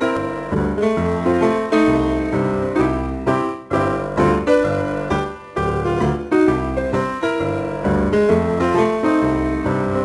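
Background music led by a piano or electric keyboard, with a steady beat of plucked-sounding notes and a bass line.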